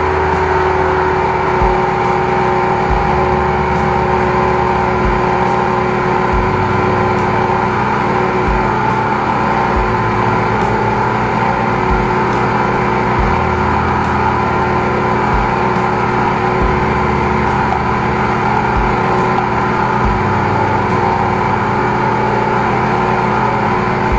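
High-pressure drain jetter's engine and pump running steadily while jetting, a loud continuous drone with a low pulsing underneath that comes and goes every second or two.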